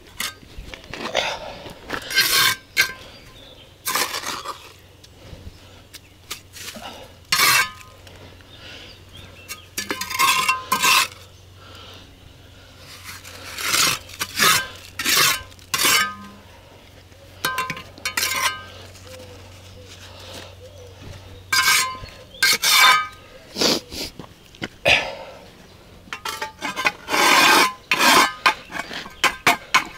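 Metal mason's trowel scraping mortar and tapping on hollow concrete blocks while a course is laid and bedded. It comes as irregular short scrapes and clinks, some with a brief metallic ring.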